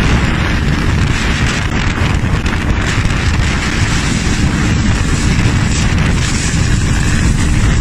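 Eurocopter EC145 helicopter hovering close overhead, its rotor downwash buffeting the microphone in a loud, steady rush of wind noise.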